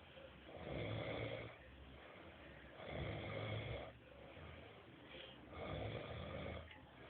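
A sleeping person snoring: three snores, each lasting about a second, roughly two and a half seconds apart, with quieter breathing between.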